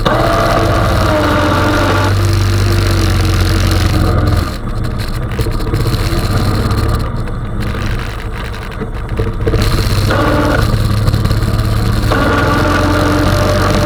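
Honda 420 ATV's single-cylinder engine running under load while plowing snow. It eases off about four and a half seconds in and picks up again around ten seconds.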